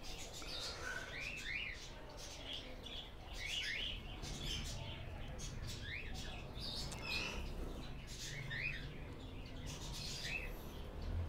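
Small birds chirping in the background: short, quick chirps that rise and fall in pitch, a few every second or two.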